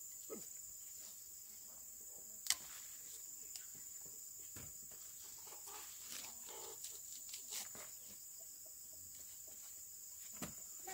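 Faint scrapes and soft knocks of a sickle trimming the roots off taro corms, with one sharp click about two and a half seconds in, over a steady high insect drone.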